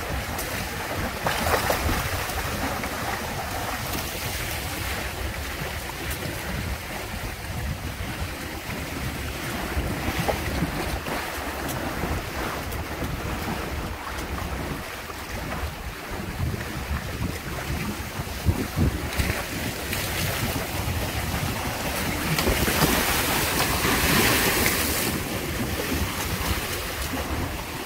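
Water rushing and slapping along the hulls of a Windrider 17 trimaran sailing fast through choppy water, with wind buffeting the microphone. A few louder surges of hiss come and go, the longest near the end.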